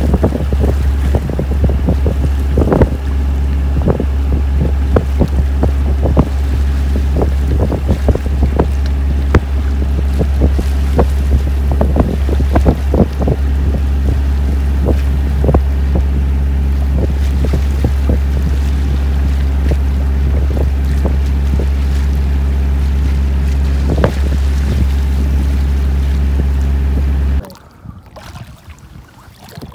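Sailboat under way in chop: wind buffeting the microphone and water rushing and slapping along the hull and the towed dinghy, over a steady low hum. About 27 seconds in the sound drops suddenly to a much quieter level.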